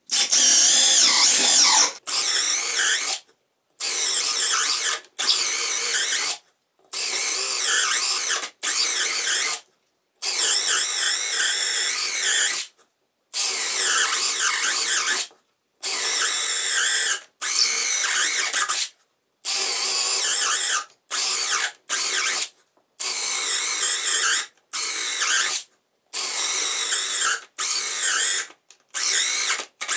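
Parkside Performance 12V brushless cordless drill driver (PBSPA 12 B2) drilling hole after hole on its 2 Ah battery during a run-down test. There are about twenty short runs, each lasting from half a second to two and a half seconds, with a silent gap between them.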